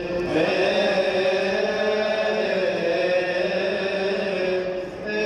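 A man's voice singing Coptic Orthodox liturgical chant into a microphone, in long drawn-out notes that wander slowly in pitch. There is a brief break for breath near the end.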